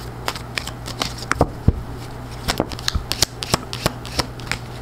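Tarot cards being handled: picked up, slid and flicked together, making irregular crisp card clicks and slaps. A steady low hum runs underneath.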